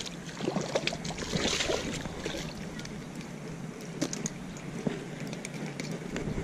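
A hooked trout splashing at the surface of the water's edge as it is brought in by hand, with a burst of splashing about a second and a half in and scattered handling clicks.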